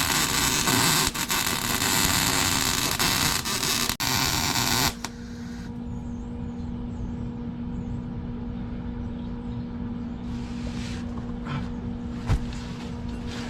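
MIG welding arc crackling and sputtering for about five seconds as a Team Z subframe connector is welded to the car's steel chassis, then cutting off suddenly. After it stops, a steady electrical hum remains, with a few light clicks near the end.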